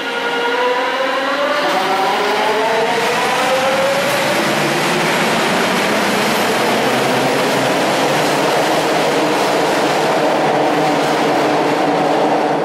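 Scarborough RT (Line 3) train pulling out of the station: its linear induction motors give a whine of several tones climbing in pitch over the first few seconds as it accelerates, which then gives way to a steady rush of running noise as it moves off.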